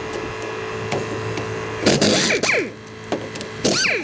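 Work noise on metal parts: scattered clicks, then a scraping, clattering burst about two seconds in and a shorter one near the end, over a steady hum.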